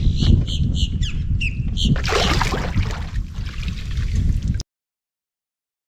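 Wind buffeting the microphone on a kayak, with a quick run of short high squeaks in the first two seconds and a brief rushing noise about two seconds in. The sound then cuts off suddenly to silence.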